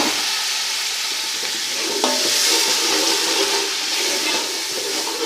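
Whisked yogurt and fried onion paste sizzling in hot ghee in a cooking pot while being stirred, with sharp clicks right at the start and again about two seconds in.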